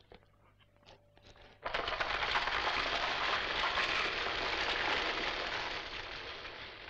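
After a few faint clicks, a loud, dense rushing noise breaks in suddenly about two seconds in. It holds steadily for several seconds, loud enough that the man covers his ears, and fades near the end.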